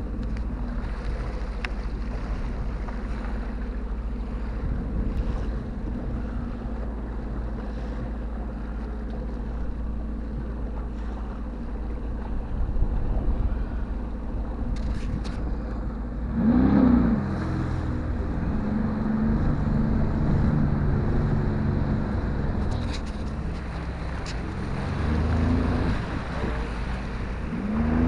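Jet ski engine running slowly with wind on the microphone and water noise. About sixteen seconds in it revs up with a rising engine note and runs faster. It eases off briefly and revs again near the end.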